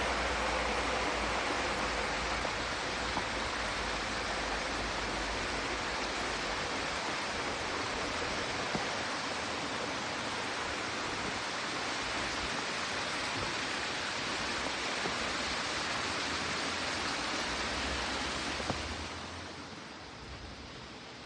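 Steady rush of flowing water, an even hiss with no distinct splashes, turning quieter and softer near the end.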